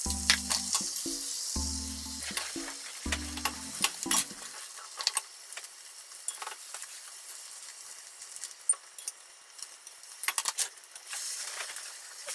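Beaten egg sizzling in a hot rectangular tamagoyaki pan as a rolled omelette is cooked, with chopsticks and a spatula clicking and scraping against the pan. The sizzle is loudest at the start as the egg goes in and swells again near the end.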